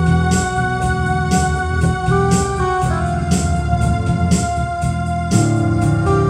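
Electronic keyboard music with organ-like sustained chords that change about halfway through and again near the end, over a light tapping beat about once a second.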